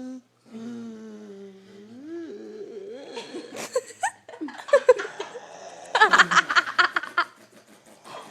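Several people giggling, trying to stifle it, then breaking into a burst of loud, pulsing laughter about six seconds in. It begins with a drawn-out hummed voice sound in the first couple of seconds.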